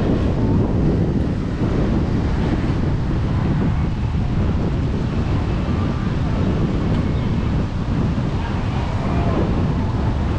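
Wind buffeting the microphone in a steady low rumble, with surf washing on the beach underneath.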